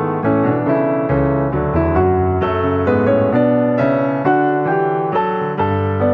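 Background music played on piano: a steady series of notes, about two a second, over sustained low bass notes.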